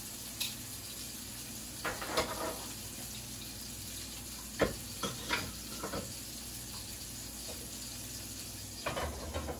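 Steak searing in a hot pan: a steady sizzle, broken by several sharp knocks and clicks of kitchen things being handled on the counter, the loudest about four and a half seconds in.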